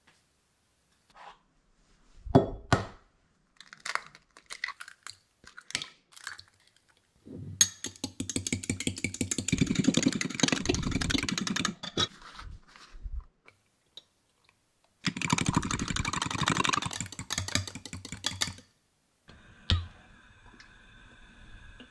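Fork whisking eggs in a small glass bowl: rapid, even strokes in two long spells, after a few scattered sharp knocks. A faint steady hum comes in near the end.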